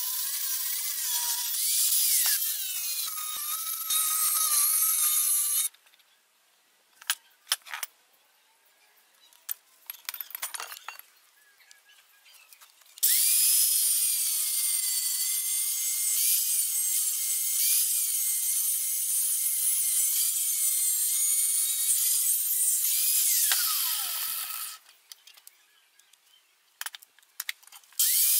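Electric angle grinder with a cut-off disc cutting metal, a loud grinding hiss over a whining motor. The first cut, through a steel plate, stops after a few seconds. After a pause with a few clicks and knocks, a second, longer cut goes through a 3/4-inch steel pipe, and the motor winds down at its end. Near the end the grinder starts cutting again.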